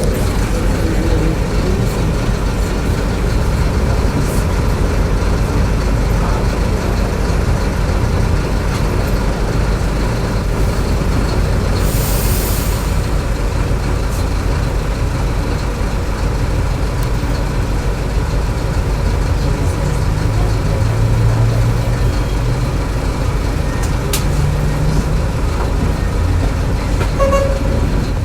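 Inside a bus: the engine runs with a steady low rumble, and a short hiss of compressed air comes about twelve seconds in.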